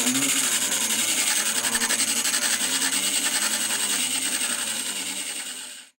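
Bench grinder running with a diamond wheel dresser held against its abrasive stone: a steady, hissing grind as the diamonds cut the wheel clean and true. It fades out near the end.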